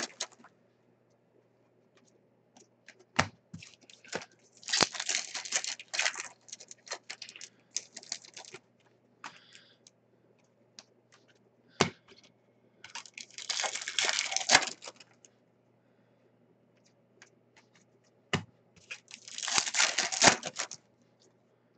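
Hockey card pack wrappers torn open and crinkled in four bursts of a second or two, with three single sharp knocks and small ticks from the cards being handled in between.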